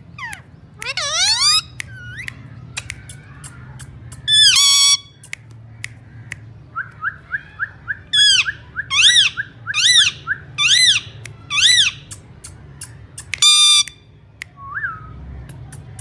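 Indian ringneck parakeet whistling and calling: gliding whistled notes, a run of short rising notes followed by five arching whistles near the middle, and two short loud harsh calls. Sharp clicks sound throughout.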